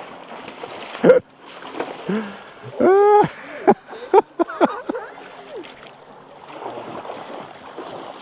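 Shallow river water splashing as a hooked sockeye salmon thrashes at the surface beside a landing net, with a sharp splash about a second in. About three seconds in comes a loud, high-pitched cry that rises and falls, followed by several shorter cries.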